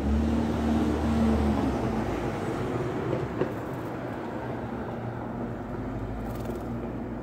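Low, steady rumble of a motor vehicle, loudest for the first two seconds and then easing off. A single sharp click comes about three and a half seconds in.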